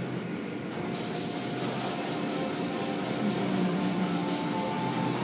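Automatic tunnel car wash running: from about a second in, a hissing swish of spray and cloth strips pulses in an even rhythm about four times a second, over the steady hum of the wash's motors.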